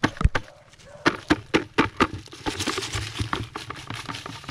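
Handling a plastic bucket of red-ant nest leaves: a quick run of sharp knocks and rustles, then a rustling hiss as the leaves and ants slide out while the bucket is tipped into a bucket of water.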